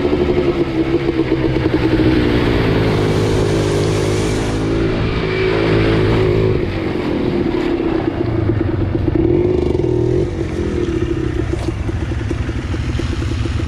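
ATV engine running loud and steady, its pitch drifting slightly up and down.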